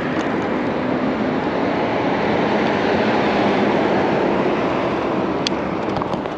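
Steady rushing road noise of riding an e-bike beside busy traffic: wind and tyre noise mixed with passing vehicles, swelling a little midway, with a light click near the end.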